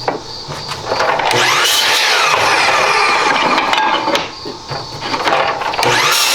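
Power tool motor running in two long runs, each spinning up with a rising whine, with a short break between them.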